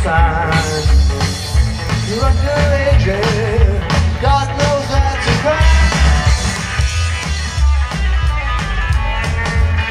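Live rockabilly band playing an instrumental break over the PA: a wavering lead guitar line over bass and a steady drum beat.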